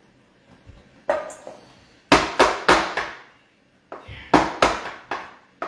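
Metal loaf pan full of batter being knocked down on the countertop, a run of sharp knocks in two bursts of four or five, to settle the batter in the pan.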